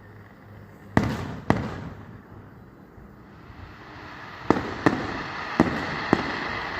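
Aerial fireworks going off: two sharp bangs about a second in, then a lull, then from about four and a half seconds a quicker series of bangs over a building crackle.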